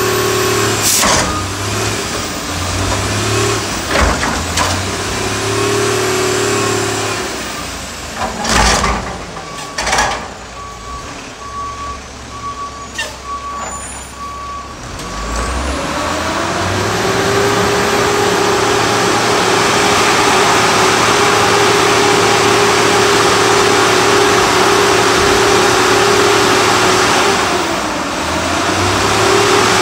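Diesel garbage truck working close by. In the first half the engine runs steadily, broken by several sharp air-brake hisses and a string of reversing beeps. About halfway through, the engine revs up and holds a steady higher speed, dipping briefly near the end before coming back up.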